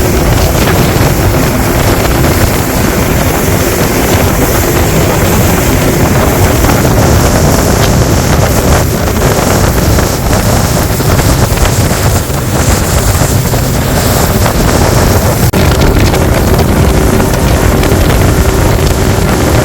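Fishing charter motorboat running steadily at speed, its engine hum under heavy wind buffeting on the microphone.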